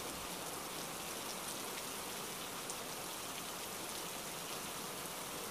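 Rain falling steadily, an even hiss of many drops with no breaks.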